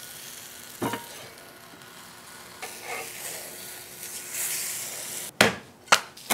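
A cheese quesadilla sizzling on a hot flat-top griddle plate, a steady hiss, with a knock about a second in and two sharp knocks near the end.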